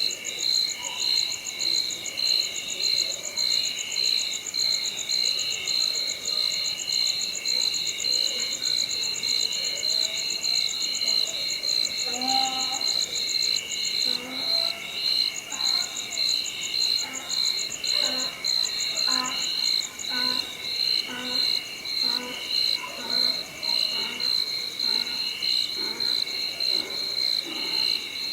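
Night chorus of crickets and other insects: steady pulsing chirps with a fast high trill that stops about two-thirds of the way through. From about the middle, a run of short, lower animal calls joins in at roughly one to two a second.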